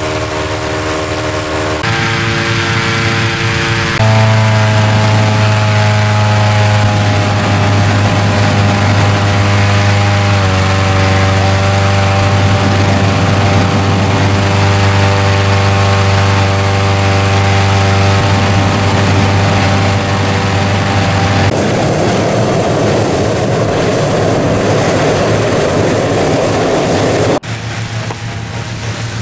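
Petrol engine of a hot-air balloon inflator fan running steadily, blowing air into the envelope. For several seconds in the second half an even rushing noise takes over, and then the engine sound comes back.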